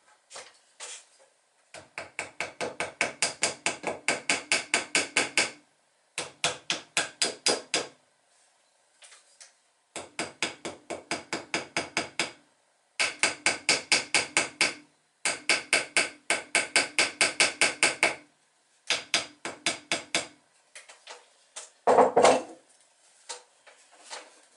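Quick light hammer taps, about five a second in runs of a few seconds that grow louder as they go, driving glued wooden plugs into the screw holes of a solid wooden hull. One louder knock near the end.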